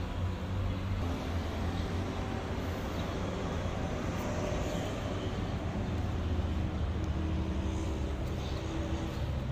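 Ram 1500 pickup's engine idling, a steady low exhaust rumble.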